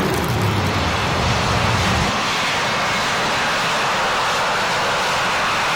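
Loud aircraft engine noise, a steady roar; a deeper, pitched engine rumble under it drops away about two seconds in.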